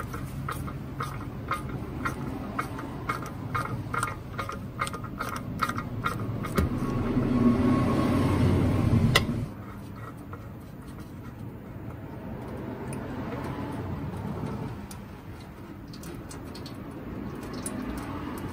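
Socket ratchet loosening the oil filter housing cap on a Saab 9-5 V6 turbo, clicking repeatedly for the first nine seconds. A sharp click about nine seconds in is followed by a quieter stretch as the cap is unscrewed by hand.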